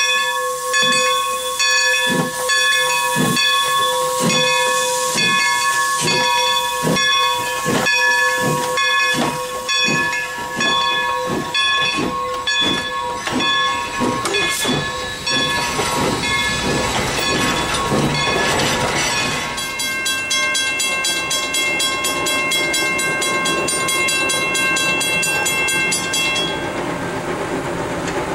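Steam locomotive No. 40, a 2-8-0, working: evenly spaced exhaust chuffs that gradually quicken, with steam hissing and a repeating ringing tone over them. About twenty seconds in the chuffs give way to a faster, finer repeating ring that stops shortly before the end.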